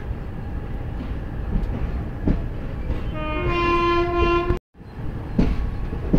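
Moving train running with a steady rumble and the clatter of wheels over the rails, heard from the open doorway of the coach. About three seconds in, a train horn sounds for about a second and a half, then the audio drops out for an instant.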